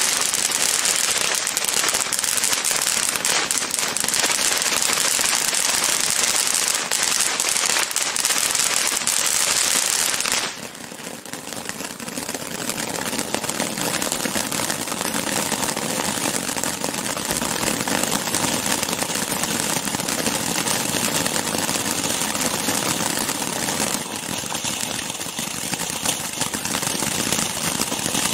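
Ground fountain fireworks spraying, a loud steady hiss thick with crackle. About ten seconds in one fountain cuts out abruptly, and the next one builds up and hisses and crackles on.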